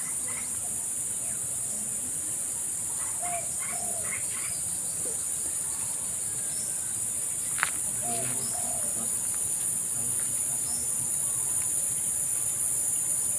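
Insects chirring in a steady, high-pitched drone, with a few faint bird calls and a single sharp click just past the middle.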